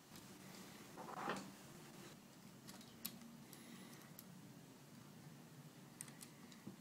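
Faint clicks and taps of small metal hardware, a bolt, nut and washer on a phone holder mount, being handled and turned by hand, with a brief scraping sound about a second in.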